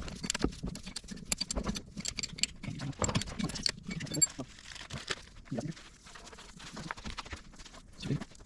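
Irregular light clicks and knocks, with a few dull thumps, as the freshly rebuilt 2001 Yamaha YZ125 two-stroke is kicked over without starting. This is a check that the new top end turns over smoothly.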